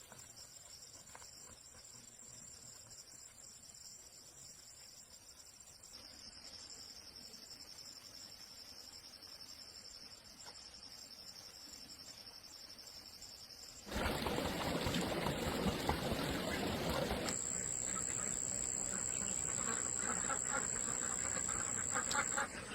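Insects, crickets among them, trilling in steady high tones. About 14 seconds in, a much louder rushing noise suddenly covers them. About three seconds later a strong high insect tone sets in over it.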